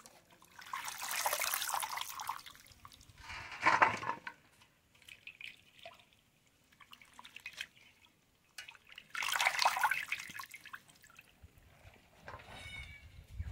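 Potatoes and brinjals being washed by hand in water: splashing and pouring in three main surges a few seconds apart, with quieter drips and sloshes between.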